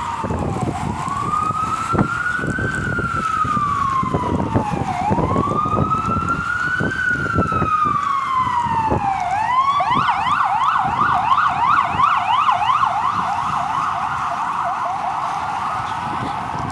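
Emergency vehicle siren in a slow rising-and-falling wail, switching about halfway through to a fast yelp of about three sweeps a second, then fading back toward a wail near the end. Gusting wind buffets the microphone underneath.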